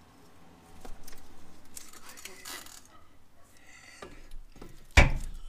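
Metal clinking and rattling of hand tools against suspension hardware, then one sharp metallic knock about five seconds in.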